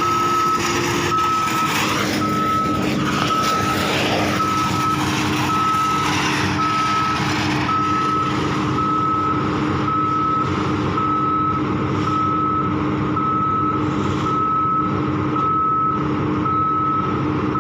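Travel alarm on a Sany 205 drilling rig beeping steadily about once a second, over the rig's diesel engine running. The engine note drops slightly about a second and a half in.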